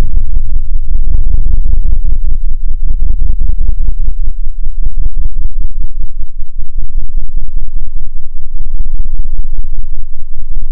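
Loud electronic sound-design score: a heavy low rumble chopped into rapid, uneven pulses. A thin, steady high tone comes in a couple of seconds in, and it all cuts off suddenly at the end.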